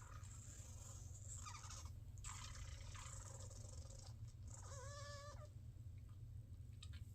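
Faint slurps of hot coffee drawn in through the lips, two hissy sips in the first half. Around the middle comes a short wavering pitched sound, all over a steady low hum.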